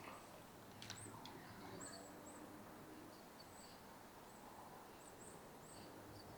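Near silence, with faint, short, high chirps scattered irregularly throughout, like small birds calling, and two light clicks about a second in.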